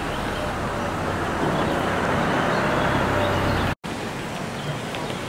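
Street traffic noise: a motor vehicle passing close by, swelling to its loudest about three seconds in. The sound cuts out abruptly for an instant, then quieter street ambience follows.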